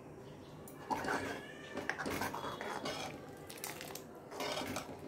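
Steel ladle stirring tomato rasam in an aluminium kadai, clinking and scraping metal on metal in several bursts from about a second in, with short squeaks.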